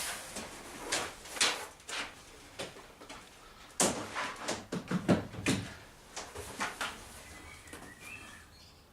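Irregular knocks and clatters of things being handled, with a cluster of louder knocks about four to five and a half seconds in.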